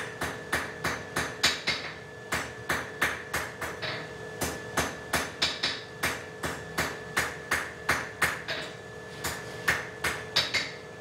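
Hand hammer forging a 6 mm round iron bar on an anvil, about three blows a second with a couple of short pauses, the anvil ringing steadily between strikes.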